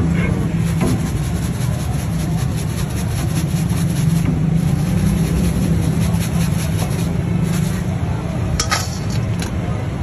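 Steady low mechanical hum, with a few sharp clicks about eight and a half seconds in.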